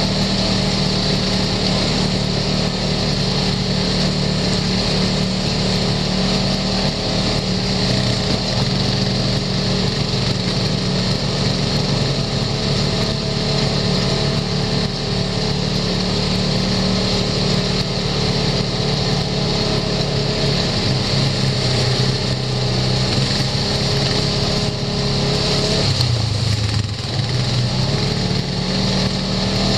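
Side-by-side UTV engine running steadily under way on a dirt trail, with the engine note dipping briefly near the end.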